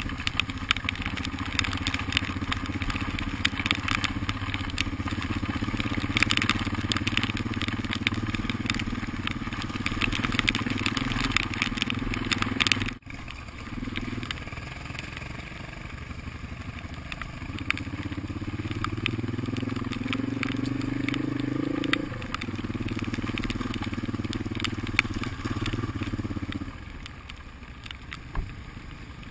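Motorcycle engine running while the bike rides over a loose gravel and rock track, with tyres crunching and stones crackling under them. Just past halfway the engine note climbs steadily for a few seconds, then drops back. Near the end the engine goes quieter.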